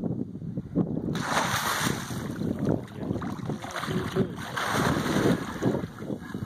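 A hooked alligator gar thrashing at the surface beside the boat, churning and splashing the water in uneven surges from about a second in.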